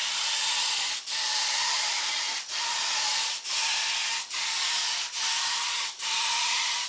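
Paint spray gun hissing as it sprays, broken by short regular dips roughly once a second. The gun is partly clogged with paint and only slowly clearing, so it sprays unevenly in streaks.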